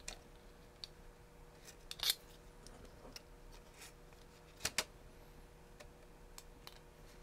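Faint small clicks and scrapes of hand assembly: a small screwdriver and tiny screws being worked into a servo arm, with a sharper scrape about two seconds in and two quick clicks a little past the middle.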